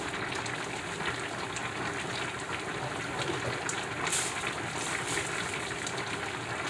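Steady bubbling hiss of food cooking on the heat, with faint clicks and rustles of hands working at the counter and a brief louder hiss about four seconds in.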